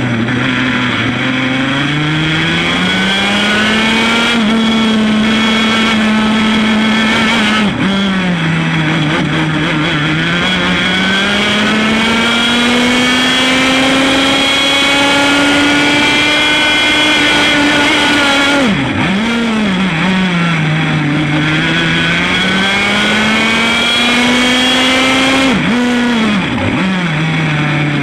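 100 cc Formula A kart's single-cylinder two-stroke engine running at racing speed. Its revs climb steadily, then drop sharply and climb again three times, at about 8, 19 and 26 seconds in, as the throttle is lifted and reopened.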